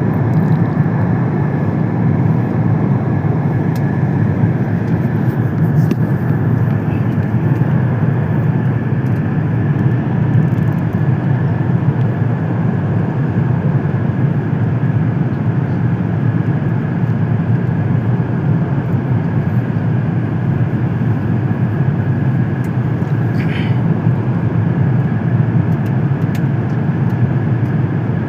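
Steady cabin noise of an Airbus A380 on final approach, heard from inside the cabin: a constant low roar of engines and rushing air with a thin high tone running through it.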